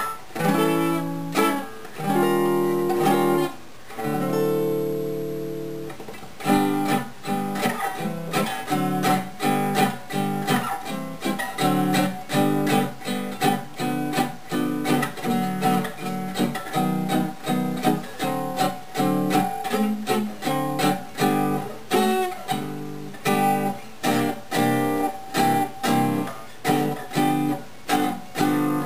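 Gibson L-48 archtop acoustic guitar being played: a few chords, one left ringing and fading out, then steady strumming at about two strokes a second.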